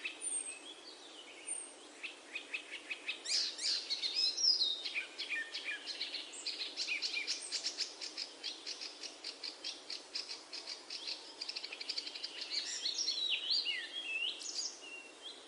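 Birds singing: fast trills of rapidly repeated high notes mixed with short chirps and slurred whistles, busiest through the middle and thinning out near the end.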